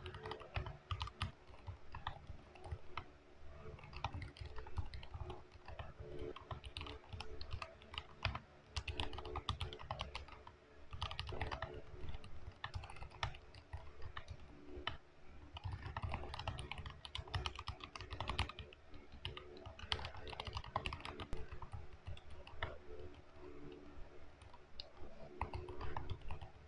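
Typing on a Tada68 65% mechanical keyboard with Cherry MX Silent Black linear switches, whose stems carry a rubber silencer: runs of quick keystrokes with short pauses between them.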